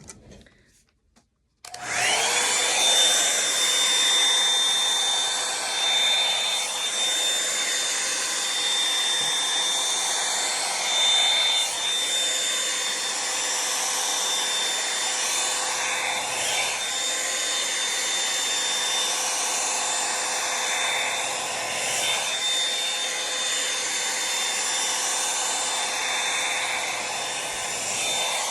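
Revlon One-Step hair dryer brush switched on about two seconds in, its motor whine rising briefly and settling, then running steadily with a rushing air sound that swells and dips a little as it works through the hair.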